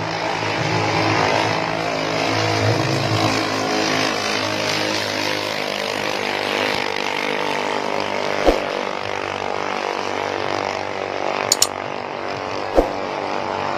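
Ketinting racing boat engine running at a steady, high drone, with a few short clicks in the second half.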